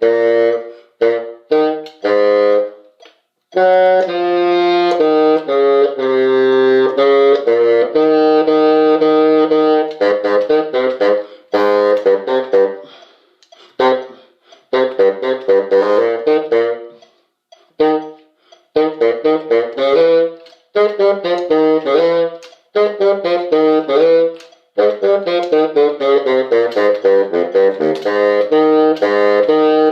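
A solo wind instrument, saxophone-like, playing a simple beginner's tune in short phrases of held notes, with brief pauses between phrases.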